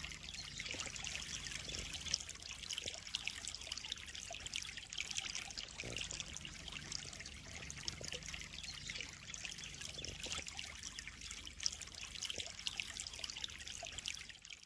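Water of a koi pond trickling and splashing steadily, a continuous bright patter of small drops.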